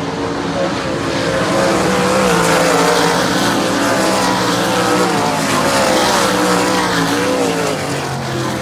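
Several dirt-track race car engines running hard around the oval in practice, a dense mix of engines whose pitch keeps rising and falling as the cars accelerate and lift through the laps.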